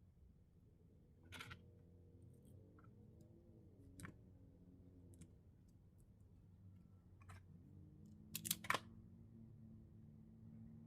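Scattered sharp clicks and snips of hand tools on a car-radio wiring harness: wires being stripped and connected. The loudest is a close pair of clicks about eight and a half seconds in.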